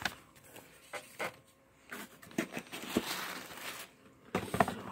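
Paper and cardboard rustling with light knocks and clicks as a packing slip is handled and a boxed Blu-ray Steelbook is lifted out of a cardboard shipping box. There is a stretch of uneven rustling in the middle and a quick run of clicks near the end.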